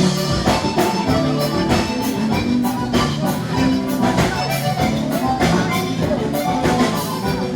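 Live band playing gaúcho dance music, an instrumental passage over a steady drum beat.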